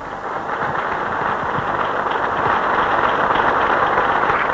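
Large audience applauding, the clapping swelling over the first couple of seconds and then holding steady.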